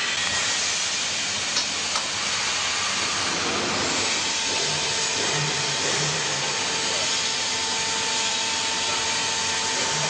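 Vertical hydraulic textile baler running: a steady hissing machine noise, with a steady whine coming in about halfway through as the press platen descends onto the clothes.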